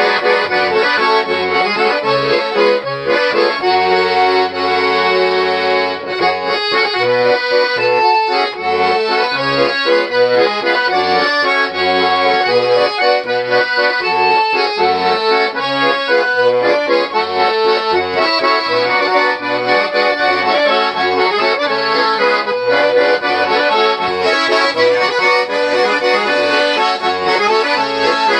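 A freshly repaired 1961 Tula garmon, a four-voice Russian button accordion, being played throughout: a melody over full chords, with short bass notes on a steady beat.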